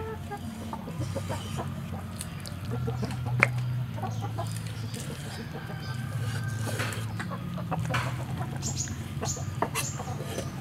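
Chickens clucking throughout. A cleaver knocks on the cutting board, sharply once about three and a half seconds in and with a few lighter taps later on.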